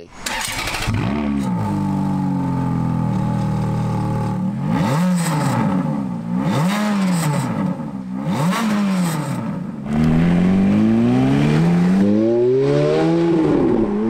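Ferrari F430's naturally aspirated V8 starting up with a brief rev flare, then idling. It takes three quick throttle blips and, from about ten seconds in, a long, louder climb through the revs that eases off near the end.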